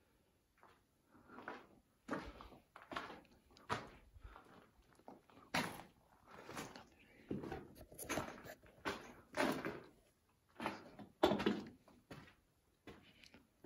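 Footsteps on a rubble-strewn concrete tunnel floor, a step roughly every second, each scuff followed by a short echo in the tunnel.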